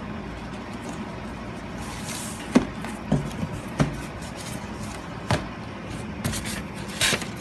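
Shipping box and packaging being opened and handled: a few sharp knocks and taps, with short stretches of rustling.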